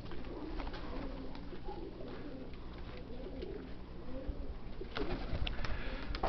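Domestic pigeons cooing softly, with gusty wind rumbling on the microphone from about five seconds in.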